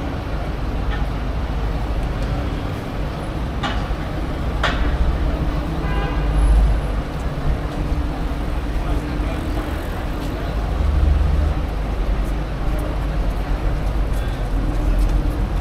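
City-centre street ambience: a steady rumble of traffic with background voices, and two sharp knocks about four and five seconds in.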